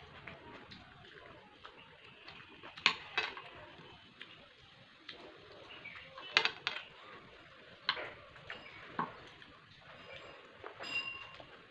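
Eating by hand from a ceramic plate: fingers mixing rice and curry on the plate, with a string of sharp clicks and clinks against the plate, the loudest coming in pairs about three and six and a half seconds in.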